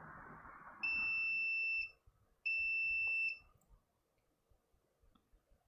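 Multimeter continuity beeper sounding twice as the probes touch the MOSFET, two steady high-pitched beeps each about a second long. The beep signals a low-resistance path, a short at the MOSFET being checked.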